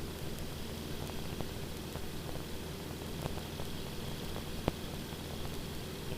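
Steady aircraft engine drone heard from inside the cockpit, with a constant low hum and hiss and a few faint clicks.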